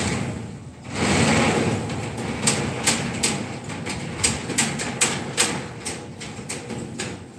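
Irregular sharp metallic clinks and taps from steel reinforcing bars and tie wire being worked by hand as a rebar mat is tied. They come thick and fast from a couple of seconds in, after a louder broad rushing noise at the start.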